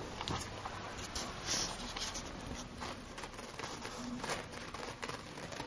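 Light scratchy rustling and pattering: a Syrian hamster's claws scrabbling over a fabric cushion and duvet, many small scrapes in quick succession.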